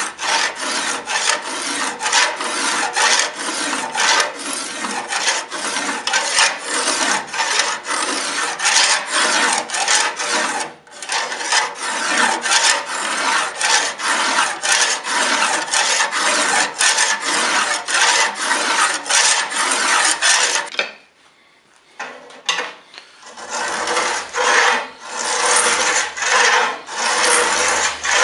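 Homemade steel fuller scraper pushed in quick repeated strokes along a steel sword blade, scraping metal out of the fuller groove. The strokes break off briefly about a third of the way through, then stop for about two seconds later on before starting again.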